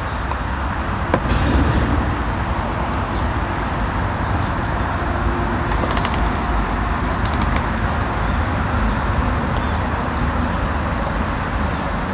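Steady outdoor background noise: a low rumble and an even hiss, with a few faint short high chirps and a quick run of clicks about six seconds in.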